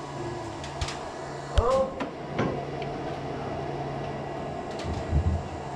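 Buttons being pressed on a 40 A solar charge controller: a few sharp clicks and taps, the loudest about one and a half seconds in, over a steady low hum. A short vocal sound follows the loudest click, and a couple of soft thumps come near the end.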